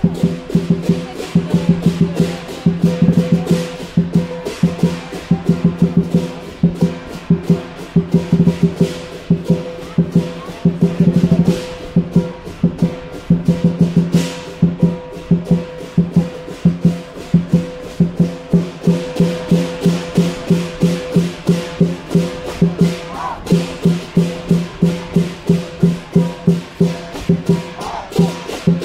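Lion dance percussion: a large drum beaten in a steady rhythm of about three beats a second, with clashing cymbals and gong ringing over it, breaking into a brief fast roll about eleven seconds in.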